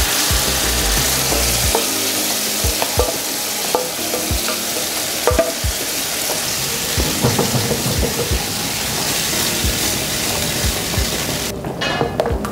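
Pepper sauce sizzling and bubbling in a frying pan as strained sauce is poured in over a hot butter, pepper and wine base, with a wooden spatula knocking and scraping against the pan. The sizzle drops away near the end.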